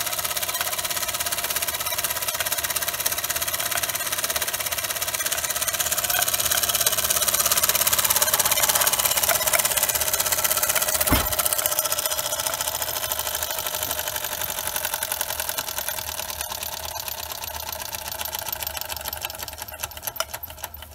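Bing 'Monna' toy steam engine running fast: a rapid, even chuffing with a steady hiss. A single sharp knock comes about halfway through. Near the end the beats space out and grow quieter as the engine slows.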